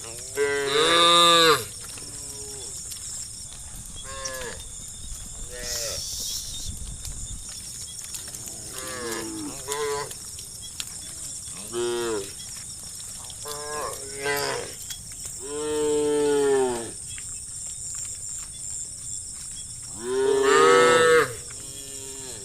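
Cattle mooing again and again, a series of short and longer calls at varied pitches, the loudest about a second in, around the middle, and near the end, over a steady high hiss.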